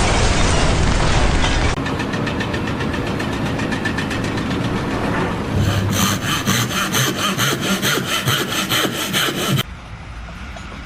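A saw cutting, with a fast, even rasping rhythm that grows louder and more ringing partway through, then stops suddenly near the end. It starts after a brief burst of dense noise.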